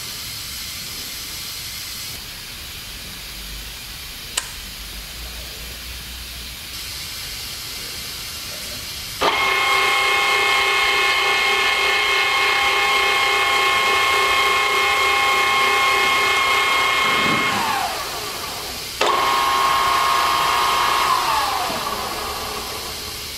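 Wilton 2456 geared-head drill press running: after a faint hum and a single sharp click, the motor and gearing start suddenly about nine seconds in with a steady whine. The pitch falls as it winds down, it starts again about a second and a half later, and it winds down once more near the end.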